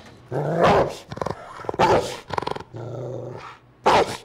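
A dog snarling and growling in several loud bursts.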